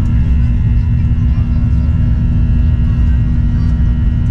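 Steady, loud cabin noise of a Boeing 737-800 jet airliner: a deep rumble with a constant hum from its CFM56-7B turbofan engines.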